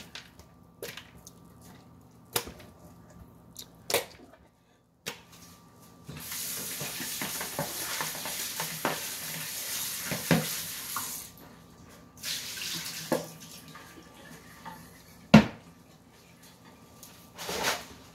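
Kitchen tap running into a sink as fish fillets are rinsed: the water starts about six seconds in and runs for about five seconds, then runs again briefly a second later. Scattered knocks and clunks come before and after, the loudest a sharp knock near the end.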